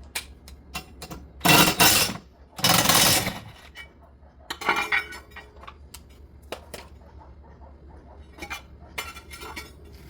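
Metal clinking, knocking and scraping as the bent wake-boat wedge arm is forced by hand to straighten it, with two loud rough scraping bursts in the first few seconds, a smaller one near the middle, then scattered light clinks.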